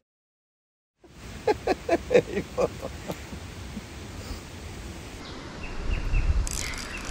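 A bird calling outdoors: a quick run of about eight short falling notes, after a second of dead silence. Near the end there is a low rumble with rustling, and a few fainter high chirps.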